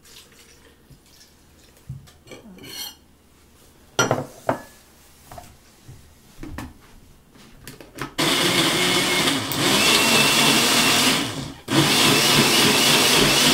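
Countertop blender switched on about eight seconds in, blending bananas and milk with a loud, even whir; it cuts out for a moment near the end and starts again. Before that, a few clicks and knocks as the jar is handled.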